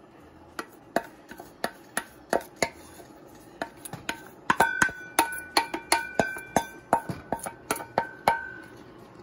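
Wooden spoon repeatedly knocking and scraping inside a stainless steel bowl, tapping chopped onions and bell pepper out into a pot. The knocks come two or three a second, and from about halfway through the bowl rings with a clear tone after each one.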